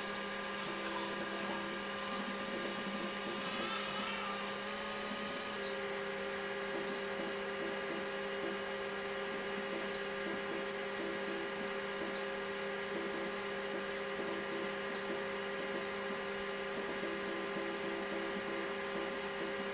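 Apple Lisa 2/5 computer and its external 5 MB Apple ProFile hard disk running during boot-up: a steady electrical and mechanical hum. Its tones shift slightly about five seconds in.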